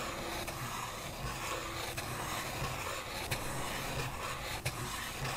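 Pen tip scratching over watercolor card as curved lines are drawn, with a few faint ticks.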